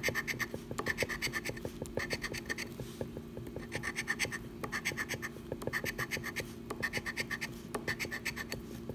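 A large metal coin scratching the coating off a paper scratch-off lottery ticket, in quick short strokes that come in bursts about once a second with brief pauses between.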